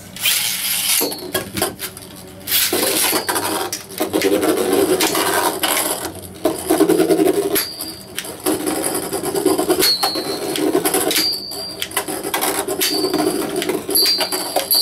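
Two metal-wheeled Beyblade spinning tops whirring and scraping around a plastic stadium, clashing with repeated sharp metallic clinks and brief ringing.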